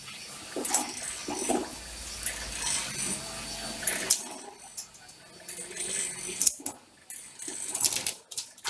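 Electric coconut shell-prying machine at work: its spinning cutter scrapes and chips at a coconut held against it, giving irregular scraping with sharp clicks and clattering over a low motor hum.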